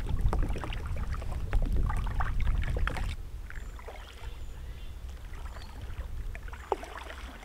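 Water rushing and splashing along a plastic sit-on-top kayak's hull as it is paddled, loud for about three seconds and then cutting off. After that, quieter paddle strokes splash and drip, with one sharper splash near the end.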